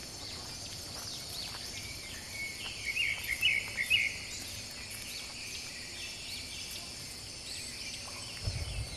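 Forest ambience: a steady high insect drone, with birds chirping in quick bursts about three to four seconds in. A soft low thump near the end.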